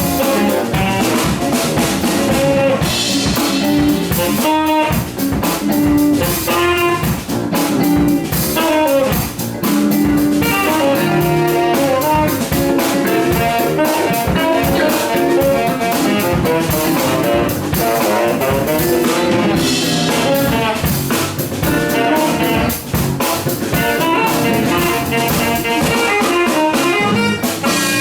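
A live band playing an instrumental funk-jazz tune: drum kit keeping a steady beat under electric guitar and horn lines.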